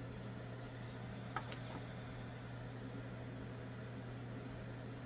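Steady low machine hum, with one light click about a second and a half in as small wooden pieces are handled.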